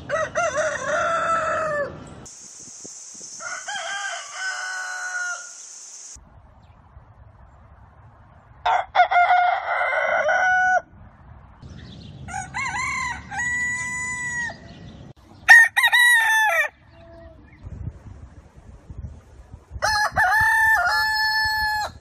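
Roosters crowing, six separate crows one after another, each lasting one to two seconds with short quiet gaps between. A steady high hiss sits under the second crow.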